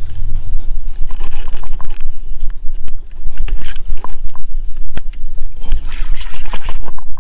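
Wind on the microphone as a loud, steady low rumble, with a few sharp clicks from a spinning fishing reel being handled and cranked.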